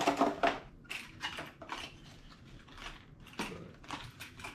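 Plastic and cardboard fishing-lure packaging crinkling, rustling and clicking as it is pulled open by hand, busiest in the first half second, with a sharper clack about three and a half seconds in.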